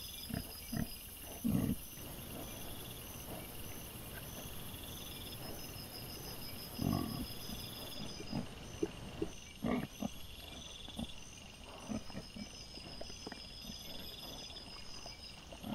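Wild boar sow and piglets grunting while they feed, in short low grunts scattered every second or two and loudest about a second and a half in and again around seven and ten seconds, sped up fourfold.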